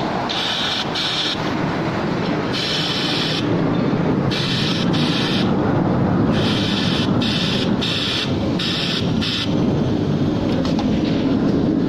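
DOIT DT5214EX cylinder-bed overlock sewing machine running at speed as it sews a fabric tube: a dense, steady mechanical clatter. Over it, a higher hiss cuts in and out about ten times, in bursts under a second long.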